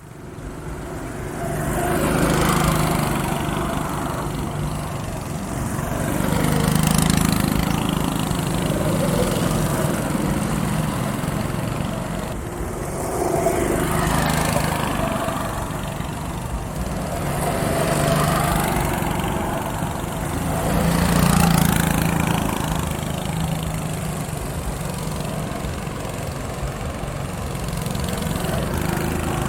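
Go-kart engines racing: small engines buzzing steadily, with karts passing that swell louder and fade away about every four to five seconds.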